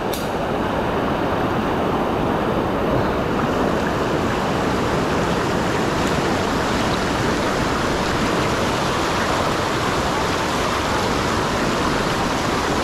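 Shallow rocky river rushing over rapids: a steady rush of water.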